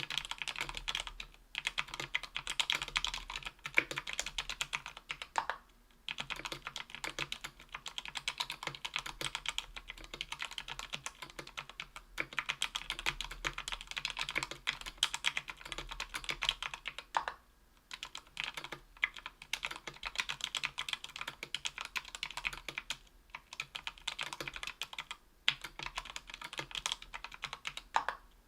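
Fast typing on a Tofu 60% aluminium mechanical keyboard with lubed JWK Rara tactile 62g switches on an aluminium plate: dense runs of keystroke clicks, broken by brief pauses every few seconds.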